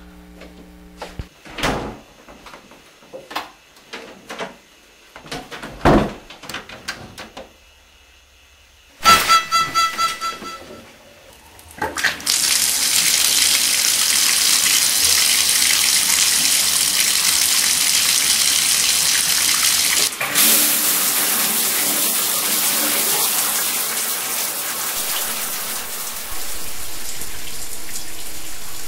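A few scattered knocks, then a short squeak, then a bathtub faucet opened. Water runs steadily and loudly from the tub spout through the rest of the sound.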